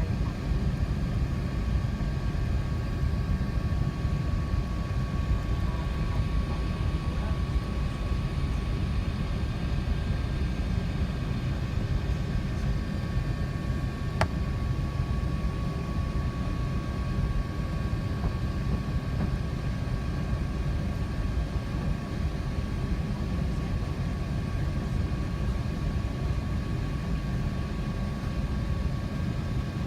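Steady rumble of an Airbus A380 in flight as heard inside the cabin: deep engine and airflow noise with a faint steady whine above it. A single sharp click about halfway through.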